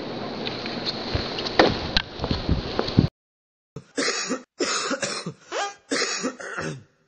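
A steady noisy background with a few clicks cuts off abruptly about three seconds in. After a short silence, a person has a harsh fit of coughing and throat clearing, four rough bursts over about three seconds.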